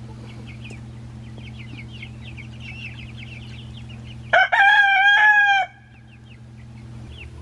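Young chickens peeping and cheeping in short high chirps, over a steady low hum. About four and a half seconds in, a rooster crows once, a loud call of about a second that stands over everything else.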